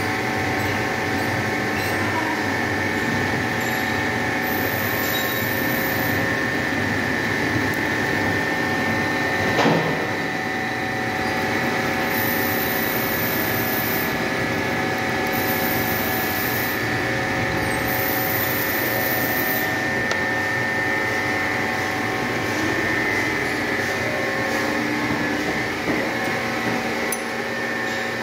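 Milling machine running, its end mill cutting a flat on a metal bolt head held in a dividing-head chuck: a steady whine made of several held tones, with one brief knock about ten seconds in.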